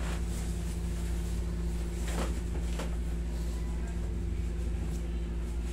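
Steady low hum of a window-type room air conditioner running, with a few faint brief knocks from movement about two and three seconds in.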